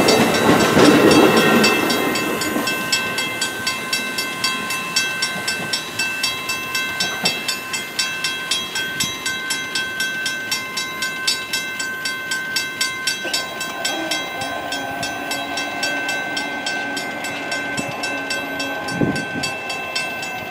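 Amtrak train of Amfleet coaches rolling past close by, its wheel and rail noise loud at first and fading over the first few seconds as it pulls away. Throughout, a grade-crossing warning bell rings rapidly and evenly. A faint held tone joins about two-thirds of the way in.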